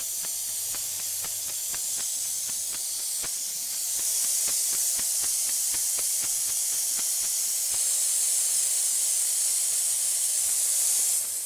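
Garden hose running, a steady high hiss of spraying water flecked with faint crackling ticks. Near the end the flow is shut off and the hiss drops away quickly.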